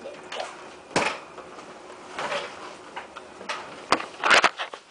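Handling noise around an office swivel chair: scattered knocks, clicks and scuffs, with a sharp click about a second in, another near 4 s and a louder scuffing burst just after it.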